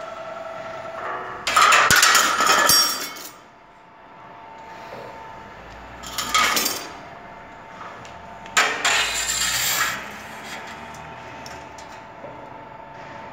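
Roll forming machine for sheet steel running, with a steady electric-motor and gear whine. Three loud spells of metal scraping and clattering cut across it as the steel strip passes through and over the metal table.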